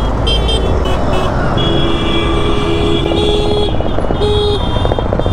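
Busy road traffic heard from a moving scooter, with a steady rush of wind and engine noise. Several vehicle horns honk over it, in short blasts and one held for about two seconds near the middle.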